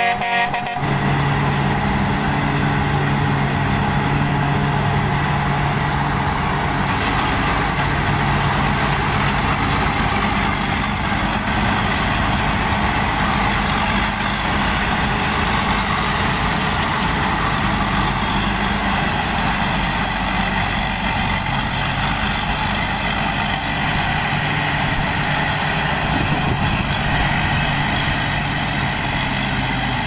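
Sakpatana tracked rice combine harvester running steadily while harvesting: the engine and threshing machinery run together, with a thin high whine wavering slightly above them. It grows a little fainter near the end as the machine moves away.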